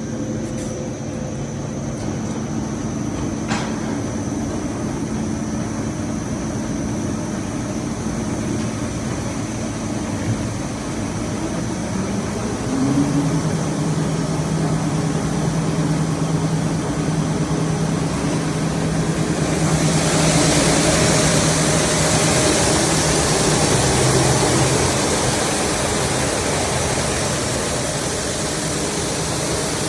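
Plywood-production machinery running steadily with a motor hum. About twelve seconds in a stronger, higher hum starts, and about twenty seconds in a loud hiss joins it.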